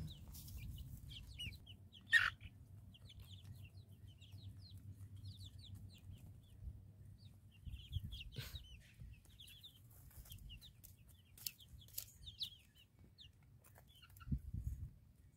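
Young chickens, about two months old, peeping and chirping softly with many short, quick calls while they feed. A few sharp clicks come through, the loudest about two seconds in and again past the middle.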